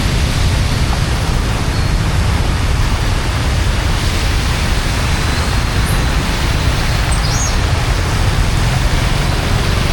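Floodwater rushing steadily, a loud, even noise that holds without a break.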